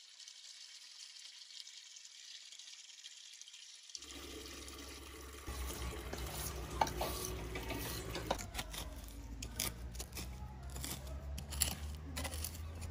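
Water running from a wall tap into a plastic watering can, a faint steady hiss. After about four seconds, a fork scraping and digging through soil in a planter box, with many scattered scratchy clicks.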